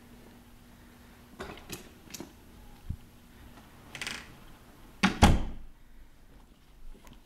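A door being handled: a few clicks and knocks, a brief swish about four seconds in, then the door shutting with a loud thud about five seconds in.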